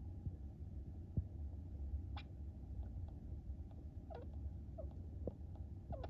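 A sleeping Djungarian hamster making about five tiny, sharp hic-like sounds, roughly one a second, over a steady low hum. The owner can't tell whether they are hiccups or sneezes.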